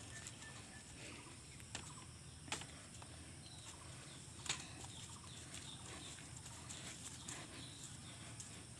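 Faint outdoor background of distant birds and a steady high insect drone, broken by a few soft ticks and knocks.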